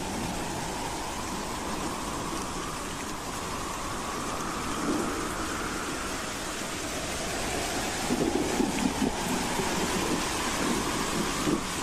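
Howling wind: a steady rush with a faint whistling tone that slowly rises in pitch twice, turning gustier and rougher about two-thirds of the way through.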